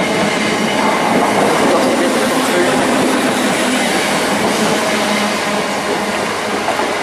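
Class 317 electric multiple unit running past the platform: a loud, steady noise of wheels on rail and running gear, with a rhythmic clickety-clack.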